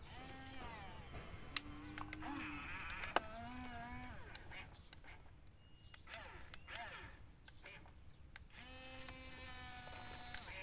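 Drawn-out animal calls, several in a row, some held on one pitch and some bending, with two sharp clicks in the first few seconds.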